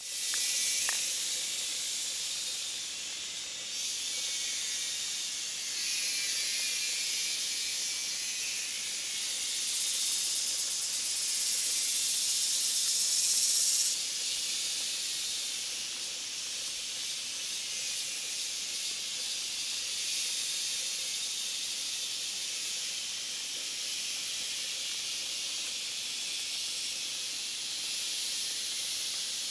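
Cicadas buzzing with a loud, high-pitched, chainsaw-like drone that swells and fades. It is loudest with a rapid pulsing for a few seconds in the middle, then drops suddenly about fourteen seconds in to a steadier, quieter buzz.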